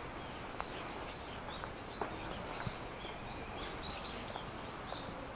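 Small birds chirping in short, repeated calls over a steady outdoor background hiss, with a few light footsteps on stone steps.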